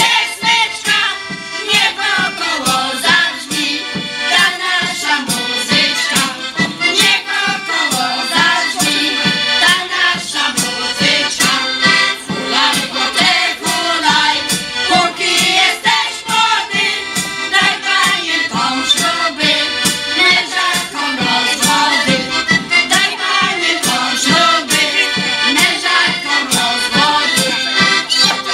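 A women's folk choir singing a folk song together, accompanied by a piano accordion, to a steady beat.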